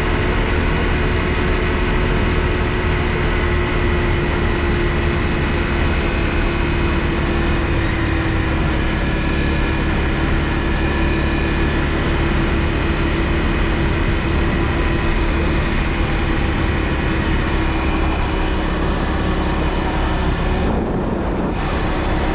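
Honda CRF250L single-cylinder four-stroke engine running at a steady cruising speed, with heavy wind rumble on the microphone. The engine note holds nearly constant, sagging slightly in pitch over the stretch.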